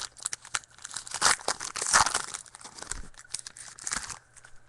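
Trading card pack wrappers crinkling and tearing as packs are opened, with cards being handled; the rustling stops about four seconds in.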